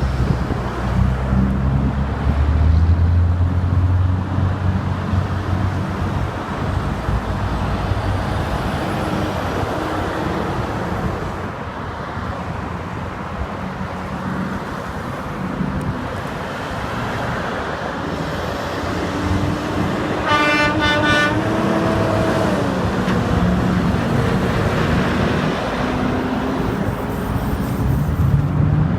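Steady highway traffic of trucks and cars passing, with a heavy engine rumbling by at the start. About twenty seconds in, a passing vehicle's horn gives one short toot of about a second.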